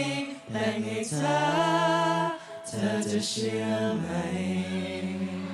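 A group of male voices singing a Thai song together, with little accompaniment. They hold each note for a second or more, and the last note is held from about four seconds in to the end.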